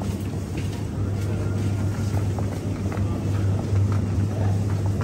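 Steady low drone of a road vehicle's engine and road noise.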